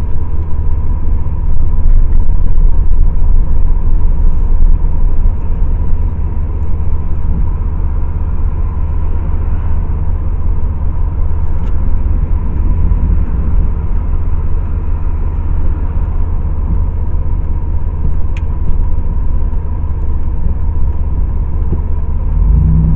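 Car driving on the road, heard from inside the cabin: a steady low rumble of road and engine noise that gets louder near the end, with a faint steady high tone under it.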